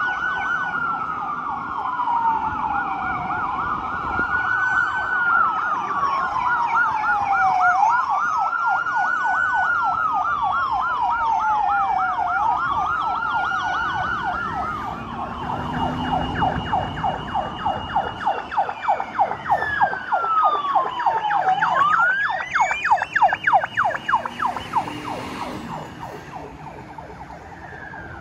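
Fire trucks' sirens sounding as they respond under lights and sirens. A slow wail rises and falls about every four to five seconds over a fast pulsing yelp; about halfway through the wail holds a high note for several seconds. A truck's engine rumble comes through as it passes.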